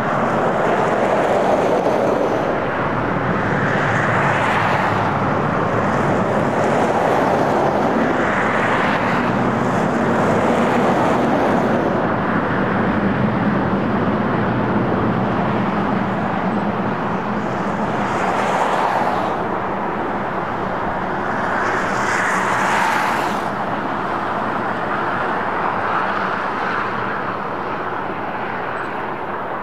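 Rotary snow plow and its pushing diesel locomotives running under load while clearing snow: a steady low engine hum under a rushing noise of thrown snow that swells and fades every few seconds.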